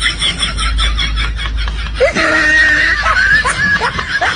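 Laughter: a quick run of short, high-pitched laughs, with one longer held note about two seconds in.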